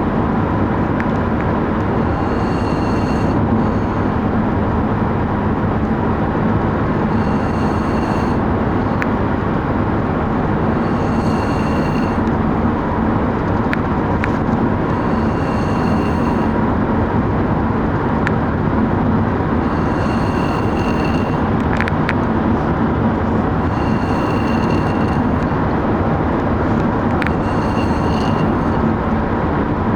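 A man snoring, one snore about every four seconds, over the steady rumble of a moving vehicle heard from inside.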